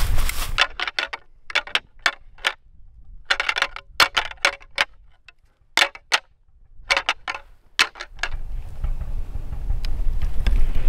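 Deer antlers rattled together in about five short bouts of sharp clacking, stopping about eight seconds in: a rut call that imitates two bucks fighting, to draw in a buck.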